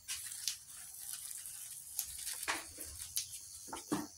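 Fresh green beans being snapped and trimmed by hand: scattered small crisp snaps and clicks, several a second.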